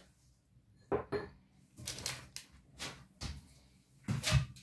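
Kitchen handling sounds: a series of short knocks and scrapes as a baking dish of egg-brushed cookie pops is lifted off a wooden table and a pastry brush is set down on a glass bowl, with the loudest thump near the end.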